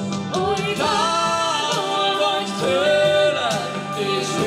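A woman and a man singing a duet from a rock opera over instrumental accompaniment, with long held, wavering notes.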